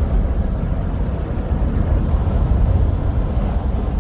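Steady low rumble of road, engine and wind noise inside a moving car.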